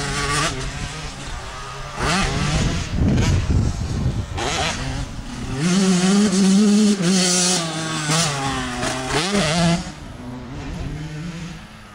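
125 cc two-stroke motocross bike engine revving hard, its pitch climbing and dropping back again and again as the rider works the throttle. It is loudest in the middle and fades near the end as the bike moves away.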